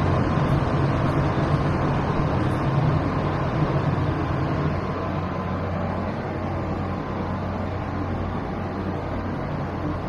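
Frigidaire 6,000 BTU window air conditioner's fan running steadily just after switch-on, a loud rush of air over a low hum. Only the fan is drawing power; the compressor has not yet kicked in.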